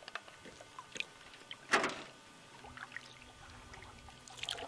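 Canoe paddling: a paddle stroke splashes in the water about two seconds in, with small drips and knocks around it, and another splash near the end.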